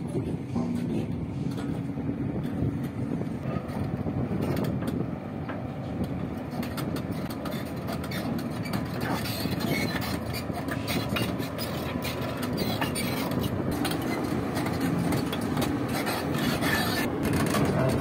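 Hyundai Robex 305LC excavator's diesel engine running steadily as it travels on its steel tracks, with clanking and clicking of the track links that becomes frequent from about halfway through as the machine climbs the trailer ramps.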